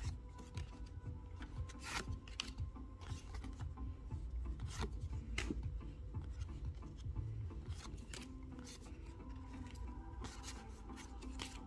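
Pokémon trading cards being flipped through by hand, each card slid off the stack with a papery rub and a light snap of card stock, irregularly every second or so.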